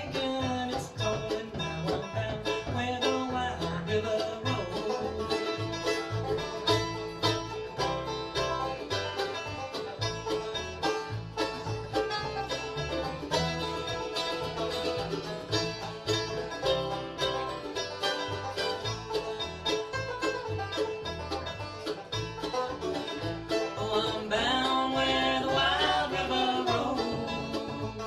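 Bluegrass band playing an instrumental break: Gibson five-string banjo picking over rhythm guitar, Flatiron mandolin and Kay upright bass, with a steady bass pulse.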